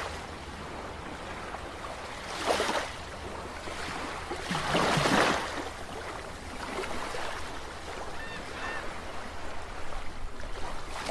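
Small waves washing on a wind-stirred lagoon, a steady wash with two louder swells about two and a half and five seconds in. Two faint high chirps come later.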